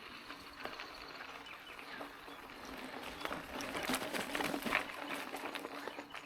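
Mountain bike tyres rolling over a rocky dirt trail: irregular crunching of gravel and small knocks and rattles, growing louder and busier a few seconds in.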